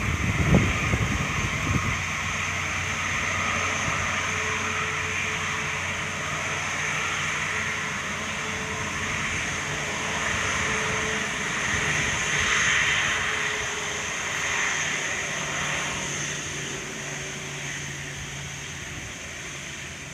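Jet airliner engines running close by, a steady jet noise with faint held tones that swells about two-thirds of the way through and eases off near the end. A few low thumps in the first two seconds.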